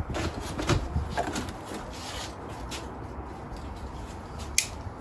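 Cardboard packaging rustling and scraping as a parts box is handled and opened, with a few light knocks in the first second or so and one sharp click near the end.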